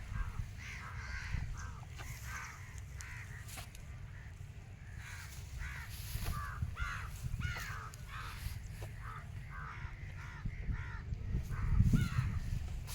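Birds calling over and over in short, harsh caw-like calls, a few a second, over a steady low rumble, with a louder low thump near the end.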